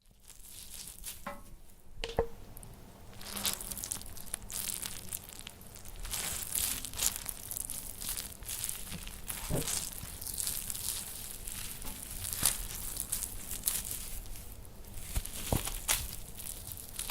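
Horror sound effect of body parts being dragged: continuous scraping and rustling, broken by irregular sharp crunches and tearing noises.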